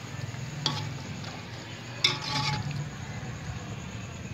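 Metal spoon stirring beef keema simmering in a large metal pot, over a steady low hum. A light clink about a second in, then a sharper clink of the spoon against the pot and a short scrape about two seconds in.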